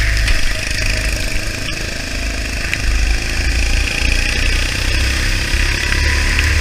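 Go-kart engine heard from on board, its pitch rising and falling as the driver works the throttle through corners, with a second kart's engine close alongside. Heavy wind rumble on the camera mic and a steady hiss under it all.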